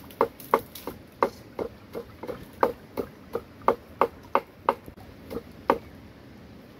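Wooden pestle pounding in a mortar: steady dull knocks, about three a second, that stop near the end.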